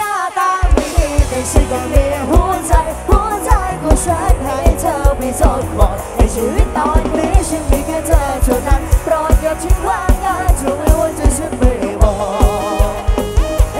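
Live band playing a fast Thai Isan pop song: a drum kit keeps a fast, steady bass-drum beat under a melodic lead line and vocals. The band kicks back in right at the start, with the bass drum joining about half a second in.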